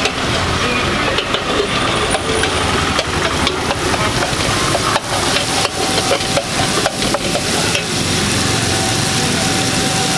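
Paneer bhurji frying in butter in a wide metal pan, sizzling steadily, with frequent clicks and scrapes of a spatula against the metal. Street traffic runs underneath.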